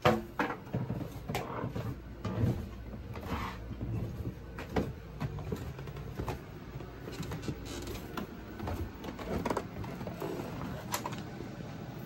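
Irregular thumps and knocks as a small red upright vacuum cleaner is carried down carpeted stairs, with footfalls and the machine bumping and rattling, the sharpest knock right at the start.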